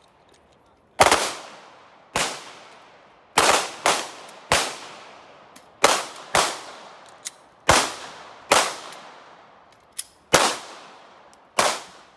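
Handgun shots from several shooters firing on a line during pistol malfunction drills: about a dozen sharp bangs at irregular intervals, sometimes two close together, each trailing off in a short echo.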